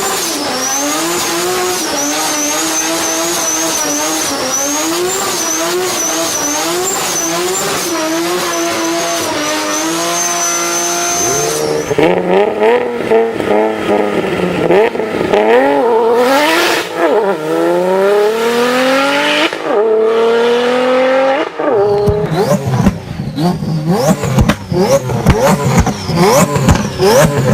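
Turbocharged car engines in a run of clips. First an engine held high with its pitch wavering up and down, along with a high whine. After a cut about twelve seconds in, the revs swing rapidly up and down and then climb steadily. After another cut near the end comes choppy, stuttering revving with turbo flutter.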